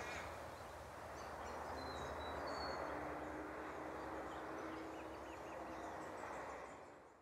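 Outdoor nature ambience: a steady hiss with faint, scattered bird chirps and calls, fading out near the end.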